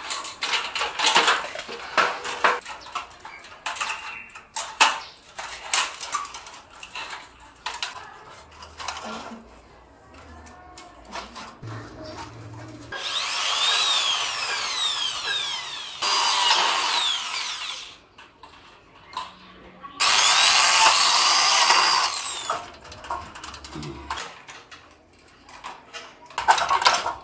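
Light-gauge steel strips clicking and knocking as they are fitted into a rack frame, then a cordless drill running three times into the steel frame, each run lasting a couple of seconds, its whine sliding up and down in pitch.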